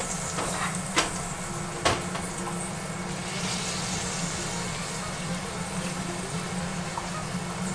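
Two sharp clicks, a cooking utensil knocking against a pan, about a second apart near the start, over a steady low hum with a faint hiss.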